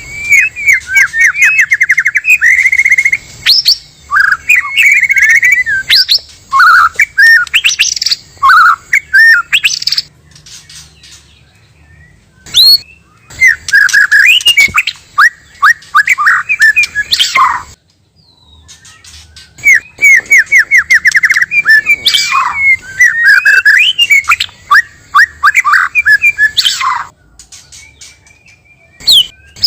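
Male and female white-rumped shamas singing: loud runs of rapid trills and whistled, up-and-down phrases, in three long bouts broken by short pauses about ten and eighteen seconds in.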